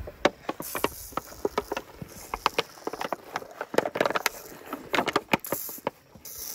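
African elephant calf sucking milk from a bottle held to its mouth: a rapid, irregular run of clicking sucks and swallows, with a few short hissing bursts.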